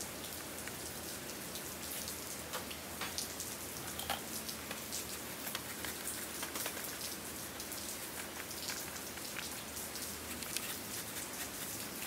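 A steady, rain-like patter: an even hiss with many scattered small ticks and clicks.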